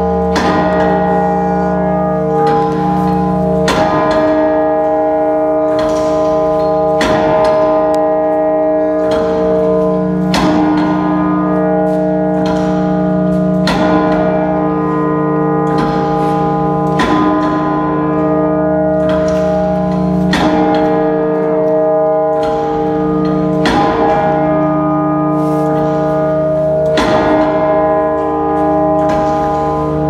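Church bells ringing loud and close, several bells of different pitches, with a fresh strike about every second and a half and each strike ringing on into the next.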